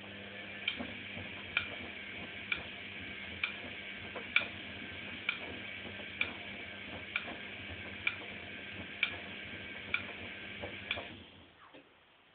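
Privileg Sensation 9516 washing machine motor turning the drum at low speed with a steady hum and a sharp click about once a second. It stops about eleven seconds in.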